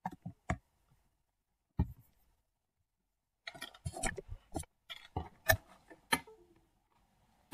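Computer mouse being clicked and handled on the desk: scattered sharp clicks, a few at the start and one near two seconds in, then a quick run of clicks and taps from about three and a half to six seconds in. The mouse has stopped moving the cursor.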